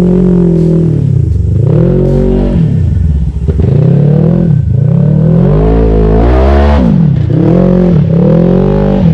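Polaris RZR side-by-side engine running hard, its pitch dropping and climbing again several times as the throttle is let off and pressed back on.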